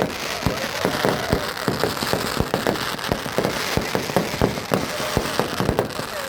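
Fireworks and firecrackers going off in a rapid, irregular run of pops and cracks over a steady hiss.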